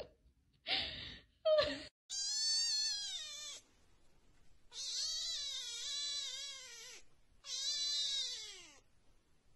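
A colorpoint kitten meows three times, long and high-pitched, each call falling in pitch at its end, the middle one the longest. Two brief, louder sounds come before the meows in the first two seconds.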